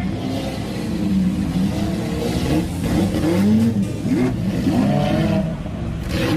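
Lamborghini sports car engines revving, several at once, their exhaust notes rising and falling and overlapping.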